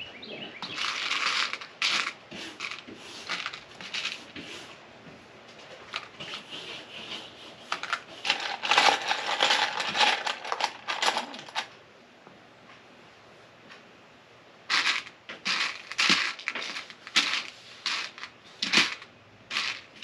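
Loose Lego Technic pieces clattering and clicking in a small plastic dish as a hand rummages through them, searching for one part. The rattling comes in bursts, with a lull of a couple of seconds about two-thirds of the way through.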